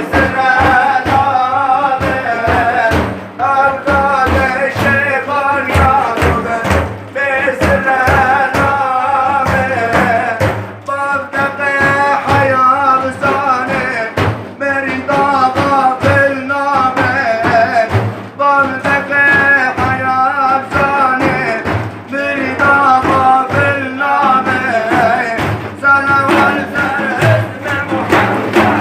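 A male voice sings a Sufi hadra chant (ilahi) over a steady percussion beat.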